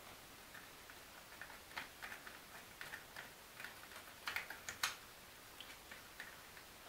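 Light, irregular clicks and taps of thin laser-cut wood pieces being handled and pressed into place on a small wooden model, with a cluster of sharper clicks about four to five seconds in.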